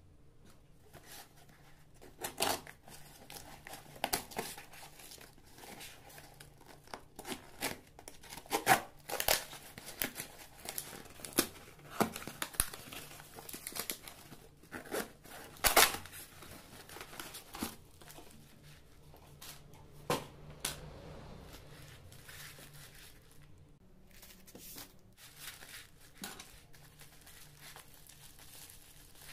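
Hands tearing open a taped cardboard box, with irregular rips of tape and cardboard, then crinkling bubble wrap as the package inside is handled.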